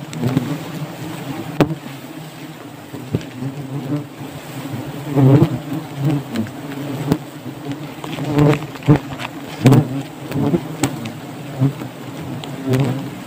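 Swarm of wild honeybees buzzing around their open comb as it is harvested: a steady low hum that swells loudly several times from about five seconds in, with scattered sharp ticks.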